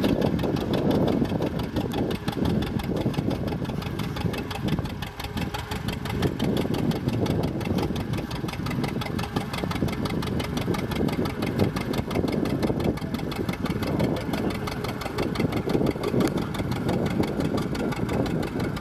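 Vintage tractor engine running steadily at a low, even speed, its regular firing beat audible throughout.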